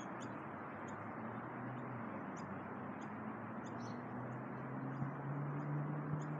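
Outdoor background: a steady hiss with small birds giving short, high chirps about twice a second, and a low hum that grows stronger in the second half.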